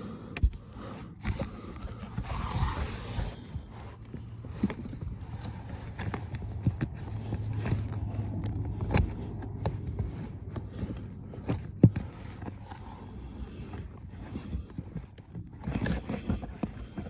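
Handling noises from a cabin air filter being pushed into its housing: the filter's frame scraping and rustling against the plastic slot, with scattered small clicks and knocks and one sharper knock about twelve seconds in.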